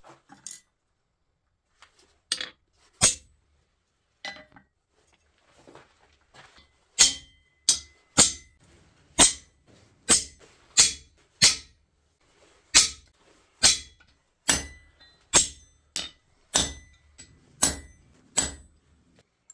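Hammer striking a steel center punch to mark hole positions on steel stock resting on an anvil: a series of sharp metallic taps, a few at first, then about one to two a second from about seven seconds in, some leaving a brief ring.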